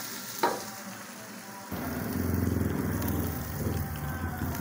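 Spice paste sizzling faintly in a steel wok as it is stirred, with a short scrape about half a second in. Then, after a cut, a steady low rumble from the pot of broth on its gas burner.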